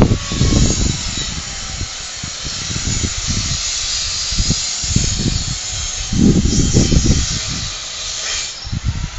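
Wind buffeting a phone's microphone in irregular low rumbling gusts over a steady hiss, the strongest gust about six seconds in.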